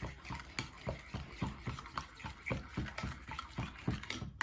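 Utensil stirring a thick barbecue sauce with minced garlic in a bowl: a rhythmic liquid squelching, about three strokes a second, with light clicks against the bowl.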